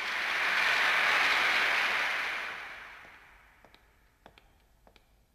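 A short burst of applause from an assembled crowd, swelling quickly and dying away within about three seconds, followed by a few faint clicks.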